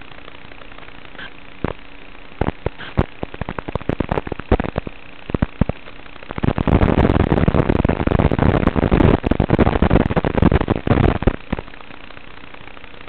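Crackling static from the analog FPV video link's audio channel. Scattered clicks and pops at first, then about five seconds of dense crackle starting around six seconds in, over a low steady hum.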